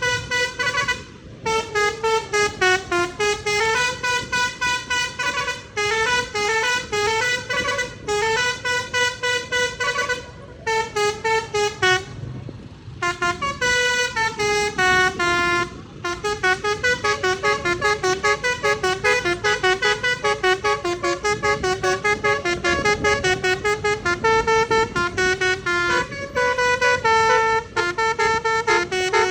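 Multi-note 'telolet' bus air horn on a Jetbus coach playing a long, fast tune of short, stepping notes, with several brief pauses between phrases.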